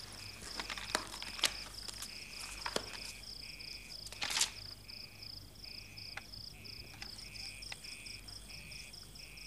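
Crickets chirping in a steady, rhythmic pulsing trill. In the first half come a few short papery rustles of book pages being turned, the loudest about four seconds in.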